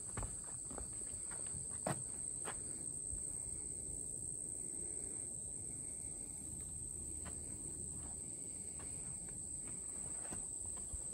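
Steady high-pitched drone of insects such as crickets, with a few soft thuds in the first few seconds.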